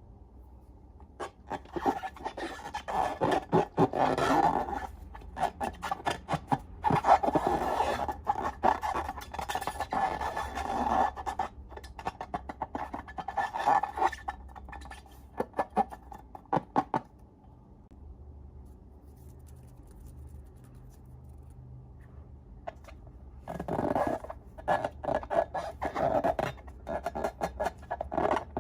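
Slime being squeezed and worked by hand, with irregular sticky clicks and crackles in bursts. The crackling stops for several seconds past the middle and then starts again.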